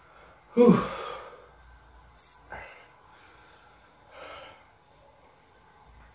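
A man lets out one loud, heavy breath with a falling voiced pitch, like a groan or sigh. About two seconds later there is a short sharp sound, and a softer breath follows near the end.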